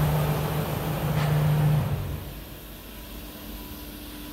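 Kimla BPFT 2131 CNC router running, a loud steady machine hum that falls away about two seconds in, leaving a quieter steady hum.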